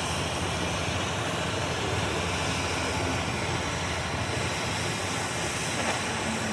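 Steady machine noise, an even running sound with a low hum, like a large engine or powered tool working without a break.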